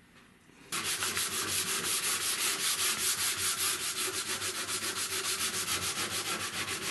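Hand sanding with a sanding block and 220-grit paper on the wooden case edge: rapid, even back-and-forth strokes, about six a second, starting abruptly about a second in. The wood is being taken down level with the brass corners.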